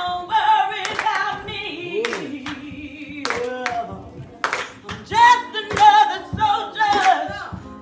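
A song with singing voices, a lead voice with backing voices, and sharp handclaps about once a second.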